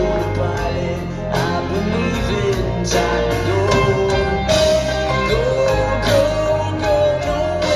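Live band music: a man singing at the piano over electric guitars and drums with a steady beat, as heard from the audience.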